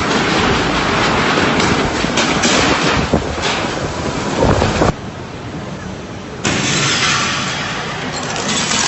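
Typhoon wind and rain: a loud, steady rushing noise with heavy low rumble of wind on the microphone. It drops abruptly quieter about five seconds in and comes back loud a second and a half later.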